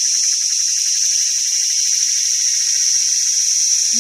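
Steady high-pitched drone of a forest insect chorus, an even buzz that does not change.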